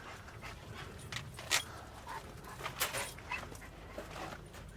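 A dog panting, with a few short scuffs and clicks.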